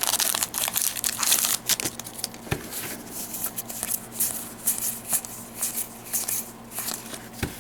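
Rustling and crinkling of a Magic: The Gathering booster pack's foil wrapper and trading cards being handled, in a run of irregular short scrapes and crackles.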